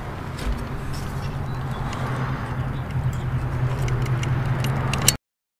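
A steady low mechanical hum, like a motor running, with a few short clicks from a caulking gun as silicone sealant is squeezed out. The sound cuts off abruptly near the end.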